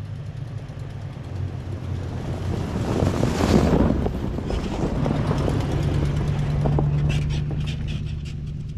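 A motor vehicle running with a steady low hum, with a swell of rushing noise a few seconds in and a quick run of ticks near the end.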